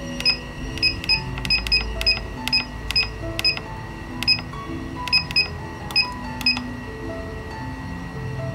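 Keypad of a Micro DNC 2 drip-feed device pressed over and over, each press a sharp click with a short high beep. The presses come irregularly at up to about three a second and thin out near the end. Soft background music plays underneath.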